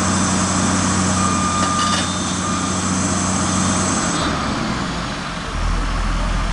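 Diesel engine of heavy demolition machinery running steadily, its sound changing about four seconds in. A short high beep sounds about a second in.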